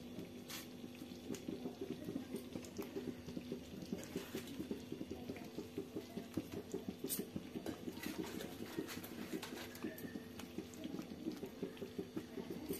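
Thick kadhi bubbling in a pan on the stove: a dense, steady run of soft plops and pops, with a few sharper clicks.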